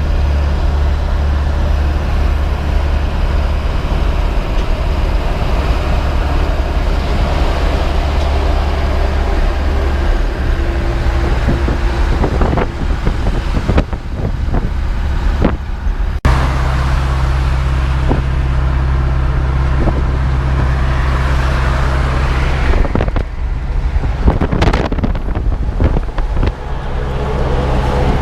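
Moving truck driving, heard from inside the cab: a steady engine drone with road noise. There are a few knocks and clatters in the second half, and the sound changes abruptly about sixteen seconds in.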